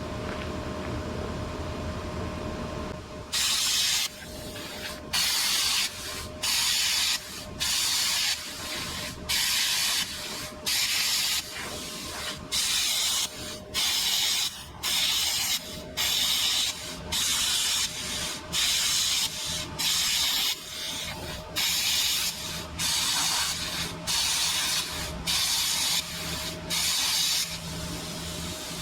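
Plasma cutter firing in short hissing bursts, about one a second, as it cuts pieces off a metal bumper, over the steady hum of the machine. The bursts begin about three seconds in.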